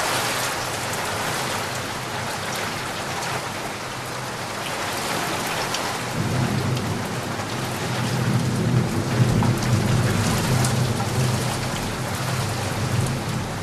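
Heavy rain falling steadily, with a low rumble of thunder coming in about six seconds in and rolling on until near the end.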